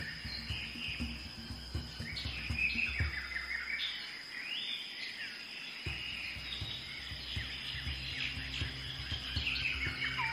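Rainforest soundscape of many birds chirping and trilling, with a steady high whine behind them. Low, drum-like pulses of background music run underneath, dropping out for about two seconds in the middle.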